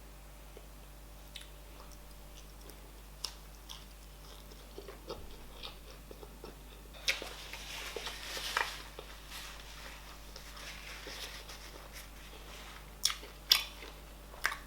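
Close-up eating sounds of fufu with oha soup eaten by hand: scattered wet mouth clicks and chewing, denser about halfway through, with a few sharp, louder clicks near the end.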